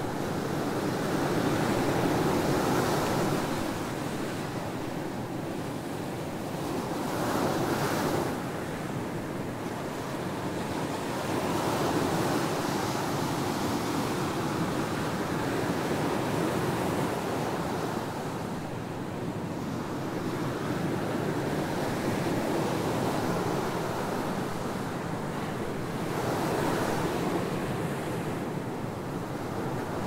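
Ocean surf breaking and washing up a sandy beach, a continuous rush that swells and ebbs with each wave roughly every five seconds.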